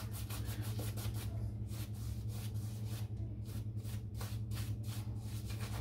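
Shaving brush painting soap lather onto a stubbled scalp: quick, repeated brushing strokes, over a steady low hum.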